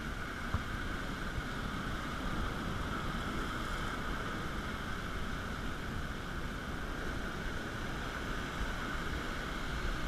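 Ocean surf breaking and churning over lava rocks in a small cove: a steady rush of water with a low rumble beneath.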